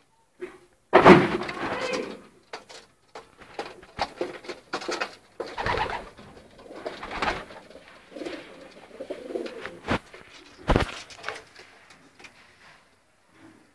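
Racing pigeons cooing in their loft, with short rustling bursts and a few sharp knocks; the loudest burst comes about a second in.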